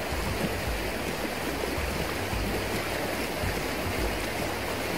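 Shallow, fast river rushing over a stony riffle and around a wader's legs: a steady, even rush of water.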